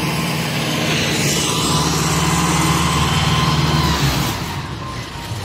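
Diesel engine of a Kubota combine harvester running steadily, then dropping away about four seconds in.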